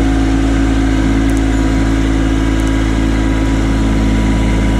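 Kubota LX2610 compact tractor's three-cylinder diesel engine running steadily at idle.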